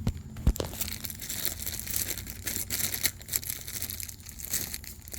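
Two sharp metal knocks in the first half second, then a crackly rustling and scraping with small clicks.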